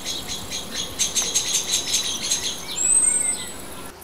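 A small bird singing: a fast run of short high chirps, about six a second, ending in a brief high falling note near the end.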